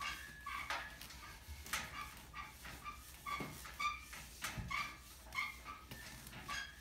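Whiteboard eraser rubbed back and forth across a dry-erase board, squeaking in short pitched chirps about two or three times a second between brushing strokes.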